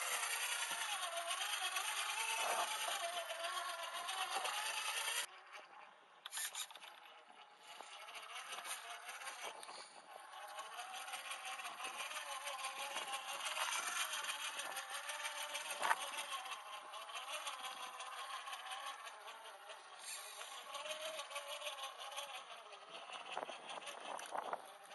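Redcat Gen8 1/10-scale RC crawler's electric motor and gears whining, the pitch rising and falling with the throttle, mixed with small clicks and scrapes of the crawler on rock. The level drops abruptly about five seconds in.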